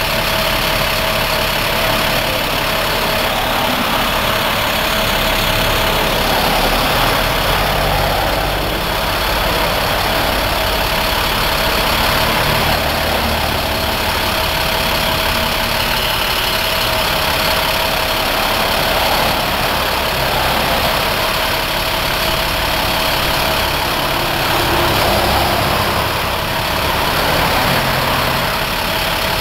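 Crane boom truck's engine idling steadily, with a steady whine running through it.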